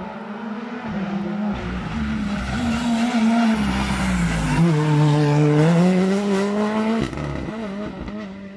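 Rally car passing at speed on a special stage: the engine builds as it approaches, its pitch dips and then climbs again as it passes, and it drops off sharply about seven seconds in. Tyre noise runs underneath.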